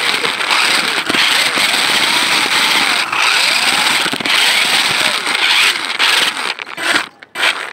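Remote-control 6×6 car driving, heard up close from on board: its electric motors and gears whine and its tyres rattle over rough pavement. The whine rises and falls in pitch, then cuts out near the end after a couple of short bursts.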